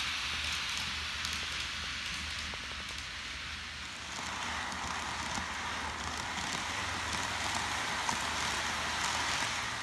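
Kato N-gauge model of a JR Kyushu 787 series train running on layout track: a steady hiss of wheels and motor with faint clicks from the rails. About four seconds in the sound shifts lower and duller.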